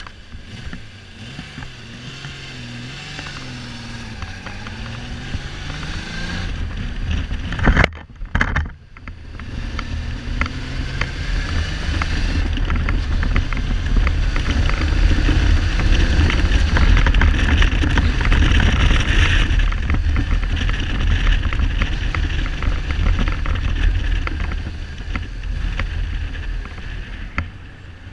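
Kawasaki Z1300's inline six-cylinder engine under way, its pitch rising and falling over the first several seconds, dipping briefly about eight seconds in, then a heavy, steady rumble with wind noise on the helmet-side microphone at speed. The engine is not running on all cylinders, a misfire the owner puts down to the carburettors or spark plugs.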